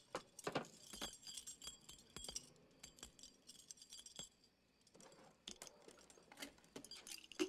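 Metal army dog tags on a ball chain clinking and jingling as they are handled: light tinkles over the first couple of seconds, then scattered small clicks.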